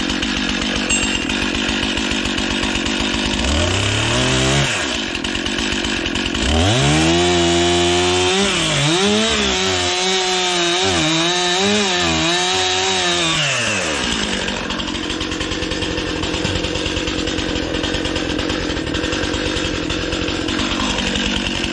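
Stihl MS261C two-stroke chainsaw idling, briefly revved about four seconds in, then held at high revs for about seven seconds as it cuts through a black locust log, its pitch wavering under the load. It then drops back to idle.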